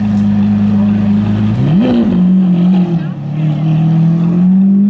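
Lamborghini Aventador S's naturally aspirated V12 running at low revs, with one quick throttle blip a little under two seconds in; the note then settles lower and slowly climbs again.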